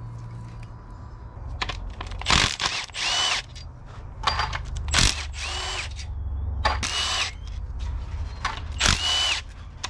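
Power impact gun run in about five short bursts, each spinning up to a steady high whine, as bolts are taken off an engine during teardown.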